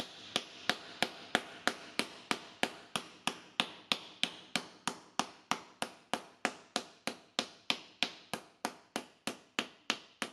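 A round-faced shaping hammer (Kugelhammer) striking a sheet-metal fender blank laid on a leather sandbag, in a steady rhythm of about three short, sharp blows a second. The blows stretch the sheet into the fender's stronger upper curve.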